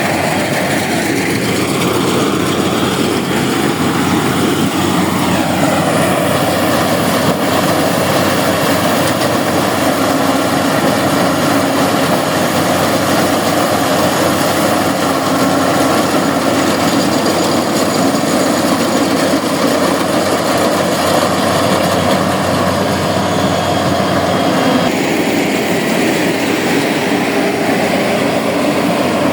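Rice combine harvester running steadily with engine and machinery noise. The pitch glides over the first few seconds and shifts again about 25 seconds in.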